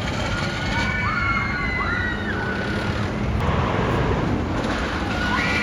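Ghost Rider, a wooden roller coaster, with its train running on the track: a steady rushing rumble with wind noise. High wavering tones rise and fall over it about a second in and again near the end.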